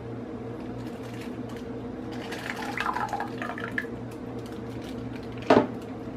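Coconut milk poured from a glass measuring cup into a pot of milk, the pour heard about two to four seconds in, over a steady low hum. Near the end comes a single sharp clink, glass against the pot.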